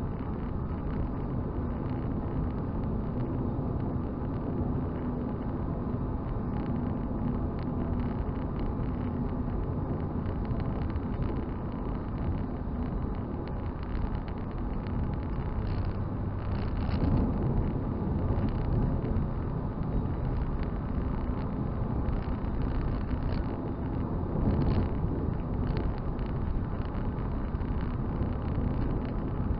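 Toyota Celica on the move, heard from inside the cabin: steady engine drone mixed with tyre and road rumble. The engine note shifts once about halfway through.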